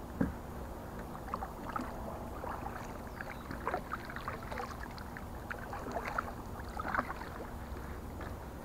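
Kayak paddle strokes through calm water: the blade dipping and pulling, with drips, small splashes and light knocks of the paddle, over a steady low rumble. A sharper knock comes just after the start.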